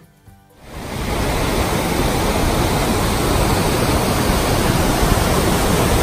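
Dynjandi waterfall: a dense, steady rush of falling water that fades in about a second in.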